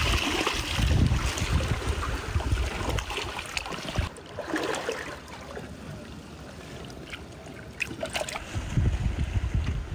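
Wind buffeting the microphone in gusts at the start and again near the end, over the slosh and trickle of shallow tide-pool water, with scattered light clicks and knocks.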